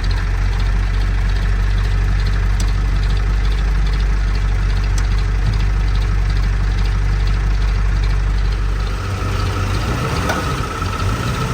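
Ford Excursion's engine running steadily with a deep even rumble, in four-wheel-drive low. About nine seconds in the deepest part of the rumble eases and a steady higher tone comes in.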